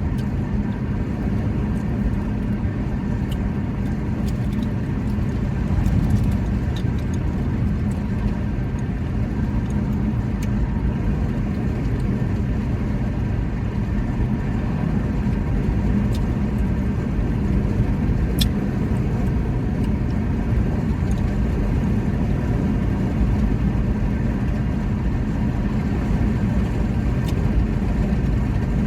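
Steady low rumble with a faint hum, like a vehicle engine, unchanging throughout, with a few faint clicks, the clearest about two thirds of the way through.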